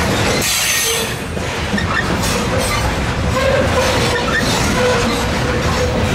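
Covered hopper cars of a freight train rolling past close by: steady wheel-on-rail rumble with faint rhythmic clicks, and thin squealing tones from the wheels that come and go.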